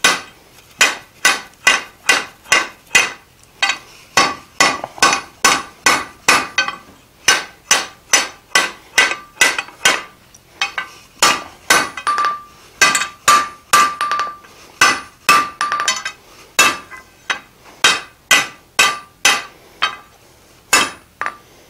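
Hand hammer striking a hot iron bar on an anvil, about two blows a second, forging a square upset corner. Some blows leave a brief high ring. There is a short pause about halfway, and the blows stop shortly before the end.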